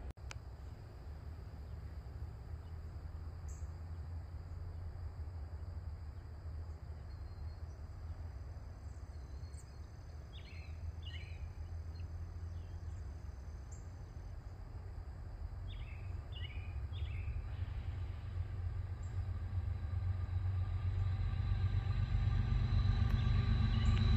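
Low rumble of an approaching diesel train, steadily growing louder over the last several seconds. A small bird chirps in two short bursts in the middle.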